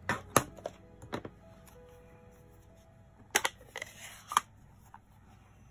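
Sharp plastic clicks and taps from a Stampin' Pad ink pad case and its hinged lid being handled: a few in the first second and a half, a louder cluster about three and a half seconds in, and another near four and a half.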